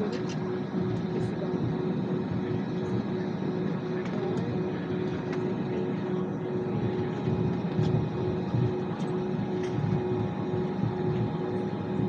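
Airliner cabin noise while taxiing: the jet engines and airflow make a steady rumbling hum with one constant tone running through it, and a few faint ticks.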